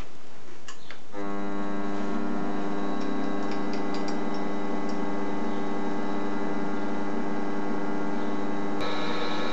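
Small metal lathe switched on, its motor and gear train starting up and then running with a steady whine. Near the end a brighter hiss joins the whine.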